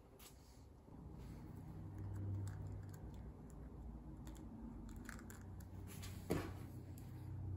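Small clicks and taps of hands handling a metal detector holder plate and its taped housing, over a low steady hum, with one sharper knock about six seconds in.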